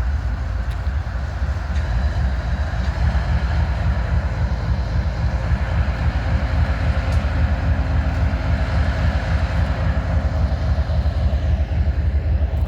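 Diesel freight locomotives running, a steady low rumble.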